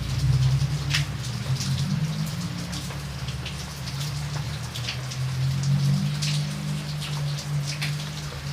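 Rain falling, with individual drops ticking sharply and irregularly over a steady hiss, and a steady low rumble underneath.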